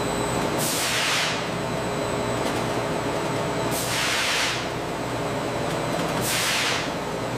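Steady mechanical running noise of a patty cooking line's wire-mesh conveyor and steam tunnel, with three hissing whooshes that each fall in pitch, about a second in, four seconds in and six seconds in.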